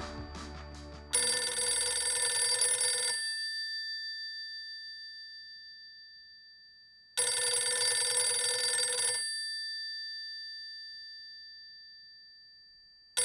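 Telephone bell ringing: two rings of about two seconds each, six seconds apart, each dying away slowly after it stops, and a third ring beginning at the end.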